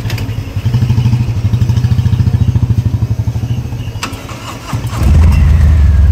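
Harley-Davidson V-twin engine idling through its exhaust with a rhythmic, loping throb. About five seconds in a louder, deeper engine note takes over.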